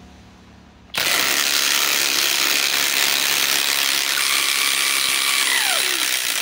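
Cordless impact wrench hammering at full speed, apparently loosening fasteners. It starts suddenly about a second in and runs for about six seconds, with a falling pitch near the end as it winds down.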